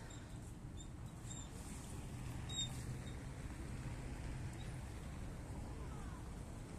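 City street ambience: a steady low hum of traffic, with a few short, high-pitched chirps in the first three seconds.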